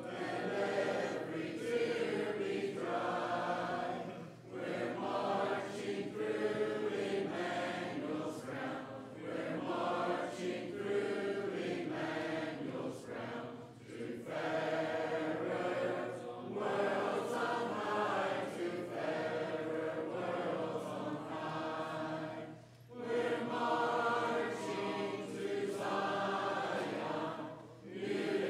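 A church congregation singing a hymn a cappella, many voices together without instruments, in long phrases with brief pauses between them.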